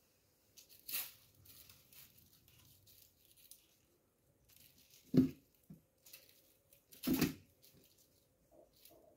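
A kitten's paws scraping and batting against a wall, with a scratchy scrape about a second in and two dull thumps, the louder about five seconds in and another about two seconds later.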